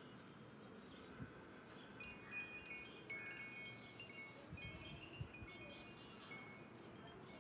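Faint tinkling of chimes: many short, high, ringing notes that start about two seconds in and keep overlapping, with a few soft knocks.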